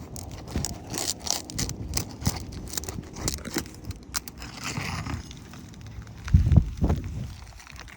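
Hands and tools working on roof shingles: irregular scraping, crinkling and clicking, with a louder cluster of low knocks about six and a half seconds in.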